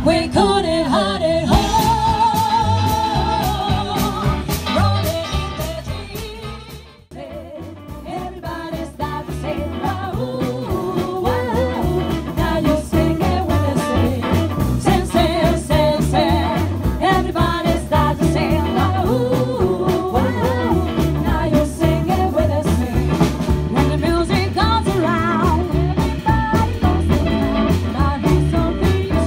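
Live band music: a female vocal trio singing at microphones, backed by saxophone, double bass, drums and guitar. The music fades out about seven seconds in and another song comes in.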